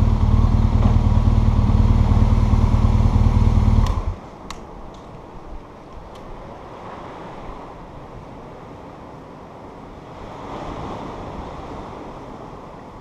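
Motorcycle engine running steadily at low revs, then cutting off abruptly about four seconds in. After that only faint wind and outdoor ambience, with a few light clicks.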